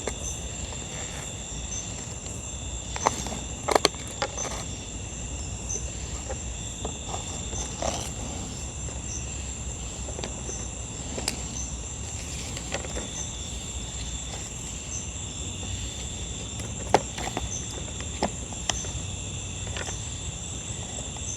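Insect chorus, crickets or similar, trilling steadily in two high, continuous tones with a regular pulsing. Scattered sharp clicks and knocks stand out now and then, the loudest a few seconds in and past the middle.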